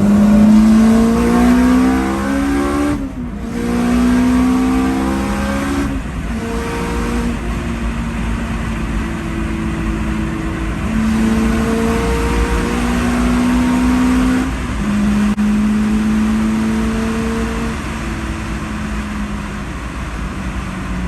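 Turbocharged Honda S2000 engine heard from inside the car, revving up as it accelerates. The pitch climbs for about three seconds, breaks sharply for a gear shift, and climbs again to a second break about six seconds in. After that the engine runs on, stepping between different speeds.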